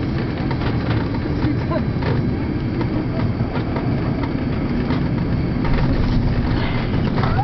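Cabin noise of an Emirates Airbus A330 touching down and rolling along the runway: a steady, heavy rumble of engines and airflow with many short knocks and jolts from the landing gear. The noise grows louder about six seconds in.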